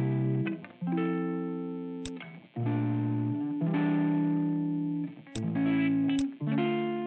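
Background music: held chords that change about every second. Three short sharp clicks sound over it.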